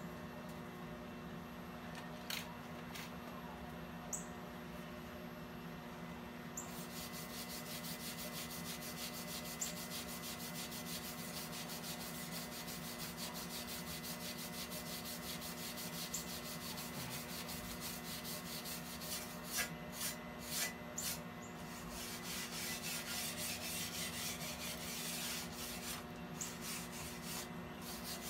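Wire brush scrubbing back and forth along a fresh TIG weld bead on a steel rock slider tube, a fast scratchy rasp that starts about a quarter of the way in and gets heavier near the end, with a few knocks. A steady low hum runs underneath.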